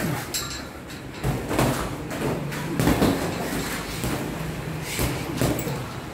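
Boxing gloves striking during sparring: a handful of irregular thuds and slaps, the loudest about three seconds in.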